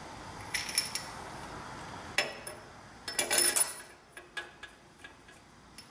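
Steel head bolts clinking against each other and against the cylinder head of a Cummins 8.3 L diesel as they are handled and set into their bolt holes: a handful of sharp metallic clinks, with a cluster about three seconds in and lighter ticks after.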